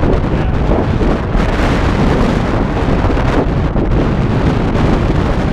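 Strong wind buffeting the camera's microphone: a loud, unbroken low rush that flutters in level.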